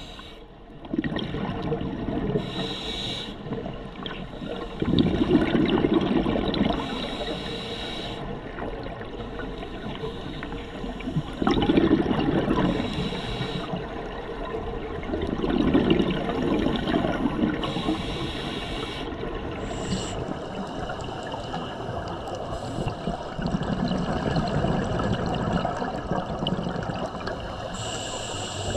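Scuba diver breathing through a regulator underwater: short hissing inhalations alternate with longer bursts of bubbling exhaust, in slow breaths every few seconds.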